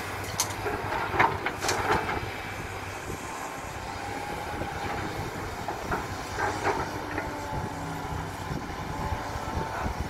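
SANY SY215C hydraulic excavator's diesel engine running steadily under load. In the first two seconds, soil and rocks dumped from the bucket clank and rattle into the dump truck's bed. About six to seven seconds in there are more clanks as the bucket digs into the pile.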